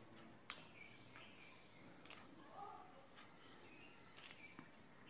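Mostly quiet handwork: a few faint sharp clicks and snaps as fingers strip moringa (drumstick) leaves from their thin stalks, the sharpest about half a second in.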